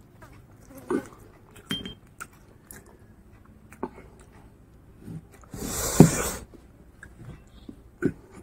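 Close-miked wet chewing and mouth smacks of a person eating curry and rice by hand, with scattered short clicks. One louder, longer noisy mouth sound comes about six seconds in.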